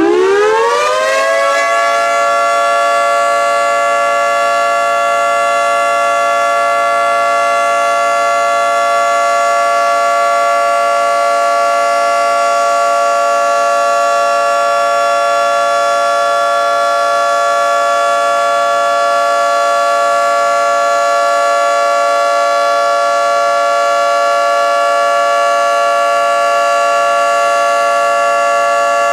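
Federal Signal 2T22 two-tone outdoor warning siren on a test. It finishes winding up, its pitch rising over the first two seconds, then holds a loud, steady two-note chord.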